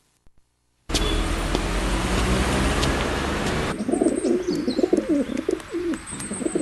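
Pigeons cooing: a run of soft wavering coos starts nearly four seconds in, with a few short high chirps. A steady rushing background noise comes in about a second in and runs under them.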